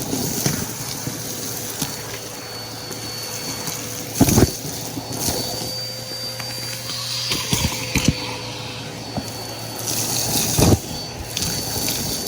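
Bissell PowerForce Helix upright vacuum cleaner running with a steady motor whine, pushed along the floor with several sharp knocks and clicks, the loudest about four seconds in.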